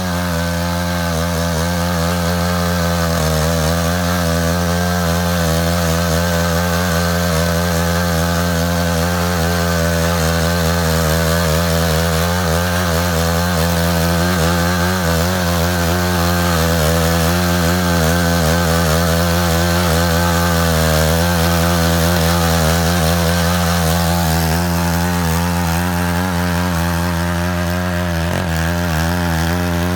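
Engine of a Matsuda walk-behind power tiller running steadily under load while it cuts a ditch.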